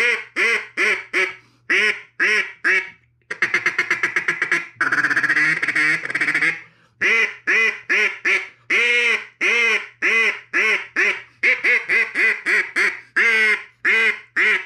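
Echo polycarbonate double-reed timber duck call blown in a run of hen-mallard-style quacks. About three seconds in the notes turn into a fast chattering run that holds for about three seconds, then quack sequences resume and stop just before the end.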